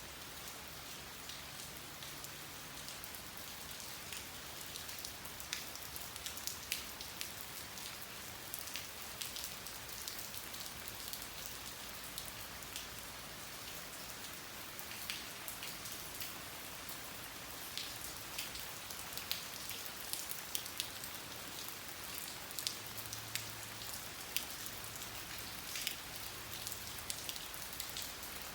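Steady rain falling, with frequent sharp ticks of single drops landing close by.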